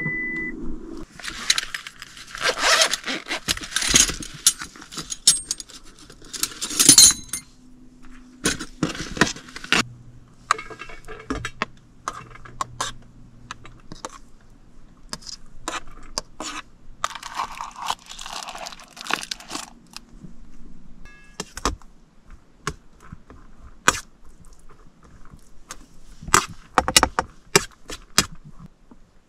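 Close-up handling sounds of a meal being got out: rustling of packaging in bursts near the start and again around the middle, with scattered clicks, taps and light clinks of utensils and containers throughout.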